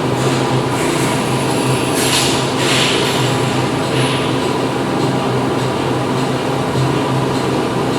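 Factory machinery running steadily with a loud, droning hum. A few short hisses come about two to four seconds in.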